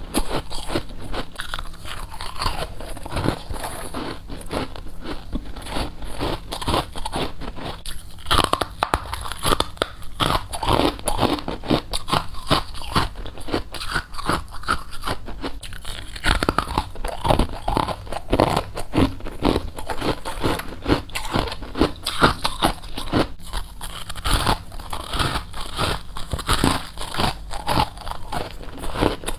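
Close-up biting and chewing of colored frost: continuous, irregular crunching and crackling as the frost is bitten and ground between the teeth.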